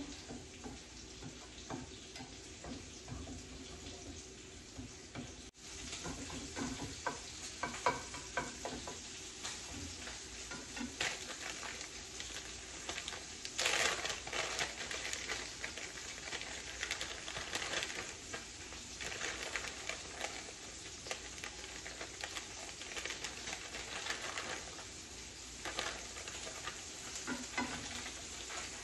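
Scrambled eggs sizzling in a frying pan while a slotted spatula stirs and scrapes them around the pan, with a louder scrape or rustle about fourteen seconds in.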